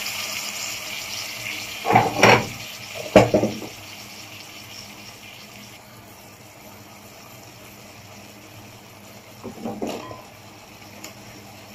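A hot pan of meat sizzles after tomato sauce is poured in, the hiss dying down over the first few seconds. Two sharp knocks and, later, a short clatter come as okra is dropped into the pan by hand.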